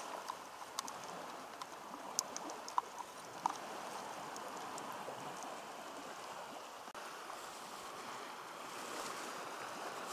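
Steady rushing of Baltic Sea surf and wind. A few light clicks of a utensil against a food container come in the first few seconds.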